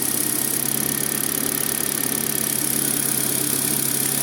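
Fourth-generation Kia Rio's petrol engine idling steadily under an open bonnet. The hiss or whistle from the air leak at the intake manifold geometry valve's fitting is not heard at this moment.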